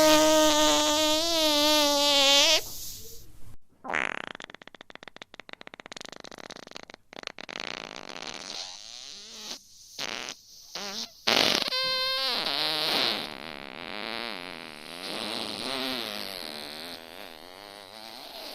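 A string of fart sound effects one after another: a high, wavering squeal at the start, a rapid flapping rattle a few seconds in, short bursts, and a long wavering one through the second half.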